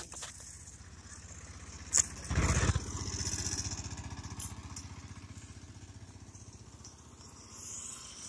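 A motorcycle engine running as it passes along the road, loudest about two seconds in and then fading away. A sharp click comes just before it.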